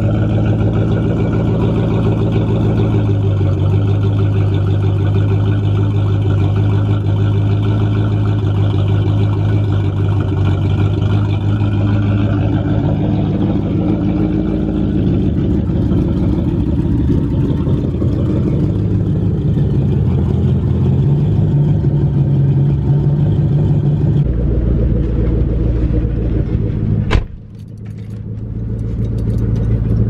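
2003 Mustang SVT Cobra's supercharged 4.6-litre V8 idling with the rough note of an exhaust leak: the downpipe, held by only one stud at the stock manifold, has been knocked out of place by bottoming out. Near the end there is a single sharp knock, after which the engine sounds quieter.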